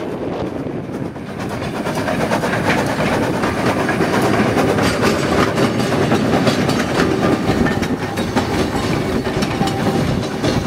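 Narrow-gauge steam locomotive and its wooden carriages passing close by. The sound grows louder about two seconds in, with the rapid clicking and clatter of wheels over the rail joints as the carriages roll past.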